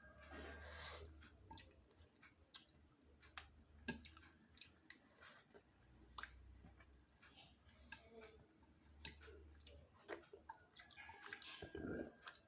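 A person chewing food with faint, irregular wet mouth clicks and smacks.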